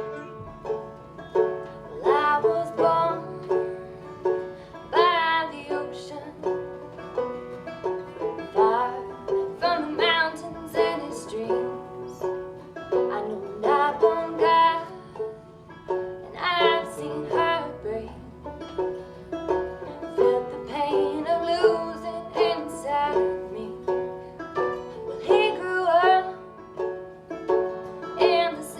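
Acoustic string band playing an instrumental break, with banjo picking out front over plucked strings and a few wavering held notes.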